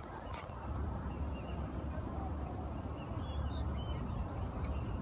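Outdoor ambience: a low, uneven rumble with faint, short high chirps from small animals scattered through the second half, and a light click shortly after the start.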